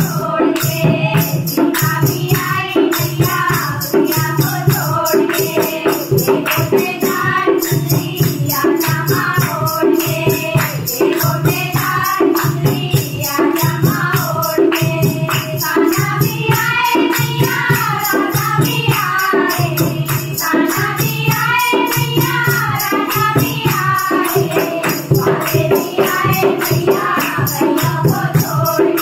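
Women's group singing a Hindi devotional bhajan to the Goddess in unison, with hand clapping, a steady drum beat and jingling metal percussion keeping time.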